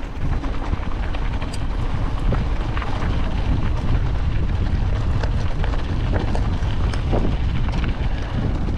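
Steady wind rumble on the microphone while an electric mountain bike rolls downhill over rough ground, with tyre noise and scattered clicks and rattles from the bike.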